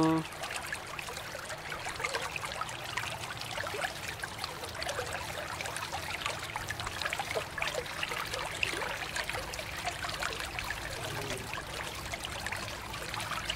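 Stream of running water pouring over a die-cast toy car held in the hands and splashing into a shallow basin of water: a steady trickling splash.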